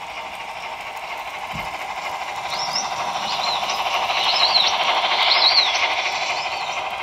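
Trix HO-scale Br 44 model steam locomotive running past, its sound decoder playing the three-cylinder steam chuff over the noise of the train rolling on the track. It grows louder as the engine passes, with a few short high squeaks near the loudest point, then fades as the wagons follow.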